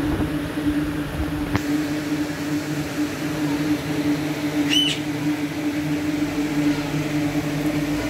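A steady low hum runs throughout. About five seconds in, an Alexandrine parakeet gives one short, sharp call.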